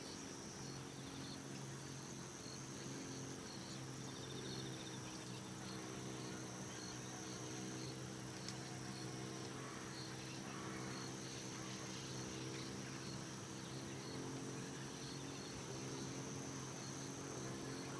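Insects chirping in the grass: one keeps up a continuous high trill while another repeats short, evenly spaced chirps, over a faint steady low hum.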